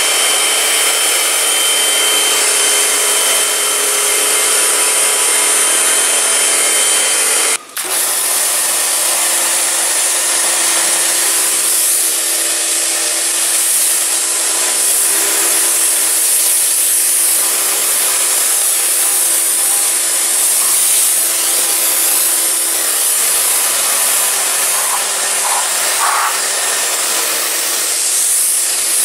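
Kärcher K2 electric pressure washer running steadily, its motor-driven pump humming under the loud hiss of the high-pressure water jet spraying onto car bodywork. The sound cuts out briefly about eight seconds in, then carries on.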